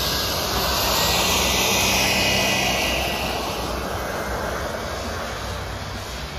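Kingtech K45 turboprop turbine on a radio-controlled Pilatus PC-6 Porter model running, a turbine whine over propeller noise. It swells to its loudest about two seconds in, then fades.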